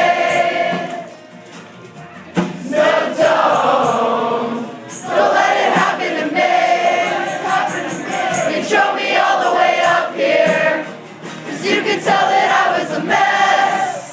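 Crowd singing along loudly with the band to two strummed acoustic guitars, played unamplified with no PA. The singing drops off briefly about a second in, then comes back in full.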